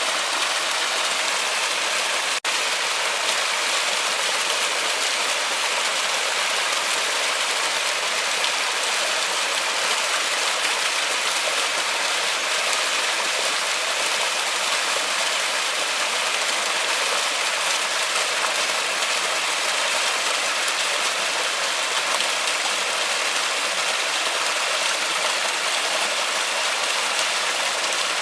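Steady heavy rain falling in a forest, an even hiss, broken by a momentary dropout about two seconds in.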